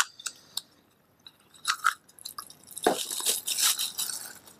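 A few clicks and scrapes as a small cardboard box is handled and opened. Then clear plastic wrapping crinkles and crackles for about a second and a half as the screwdriver's charging base is unwrapped. The crinkling is the loudest part.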